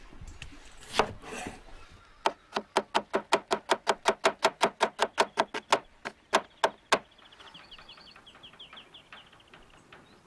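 Large kitchen knife slicing a red onion on a wooden cutting board: a quick, even run of about twenty chops, roughly six a second, starting about two seconds in and stopping near seven seconds in. Faint bird chirps follow.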